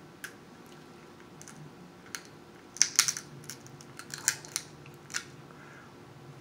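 King crab leg shell cracking and snapping as it is broken apart by hand: a run of sharp clicks and cracks, loudest in a cluster about three seconds in.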